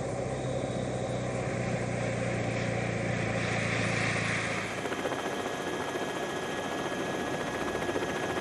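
Steady engine noise and wind from the race's TV camera vehicles. A low engine hum drops away about halfway through, leaving an even rushing noise typical of the camera helicopter's rotor and engine.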